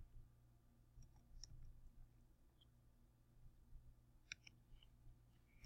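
Near silence: a low steady hum with a few faint, scattered computer mouse clicks, and a sharper click at the very end.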